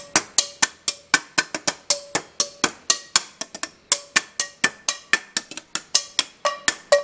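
Background music: a percussion track of quick, evenly spaced knocks like woodblock and cowbell, about four to five a second, some with a short pitched ring.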